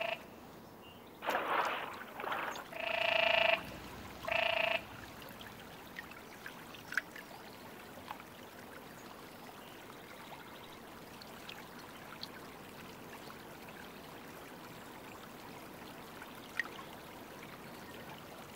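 Male canyon tree frogs croaking in their breeding pool: a few short calls, pitched and one rougher, in the first five seconds. After that, soft trickling water with faint drips.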